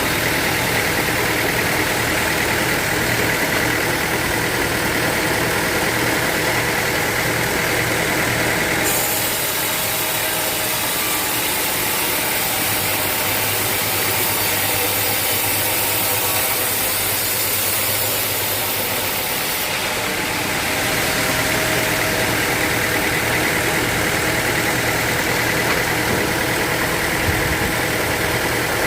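Sawmill machinery running with a steady mechanical drone. About nine seconds in the sound shifts abruptly to a brighter, hissier tone, and about twenty seconds in it shifts back.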